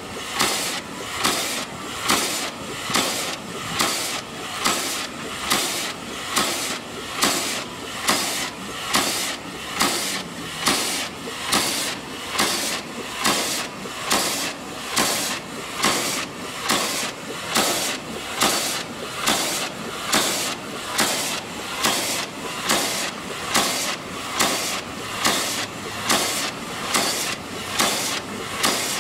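Steam pile driver's hammer pounding a wooden log pile in a steady rhythm, a little under one stroke a second, with a hiss of exhaust steam at each stroke.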